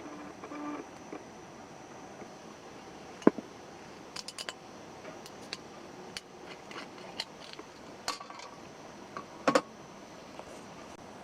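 Small hard objects, camp cookware and utensils, being handled: a scatter of sharp clicks and light knocks, the loudest about three seconds in and a double knock near the end, over a steady faint hiss.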